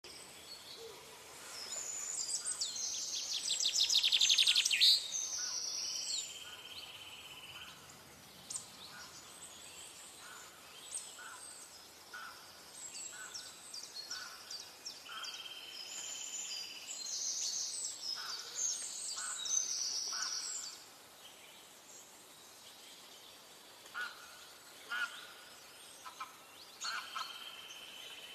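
Several birds singing and calling: bursts of high chirps and trills, busiest about two to five seconds in and again around sixteen to twenty seconds in, with quieter scattered calls in between, over a faint steady hiss.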